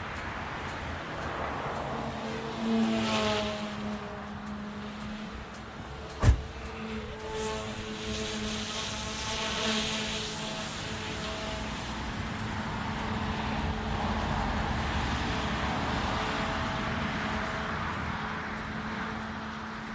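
OMP Hobby M2 brushless electric RC helicopter in flight: a steady hum from the rotors and motor whose pitch and loudness rise and fall through loops and rolls. A single sharp knock about six seconds in.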